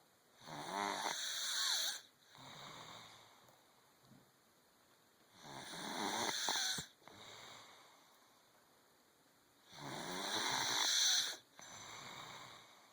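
A person snoring in their sleep: three loud snores about four and a half seconds apart, each followed by a quieter breath.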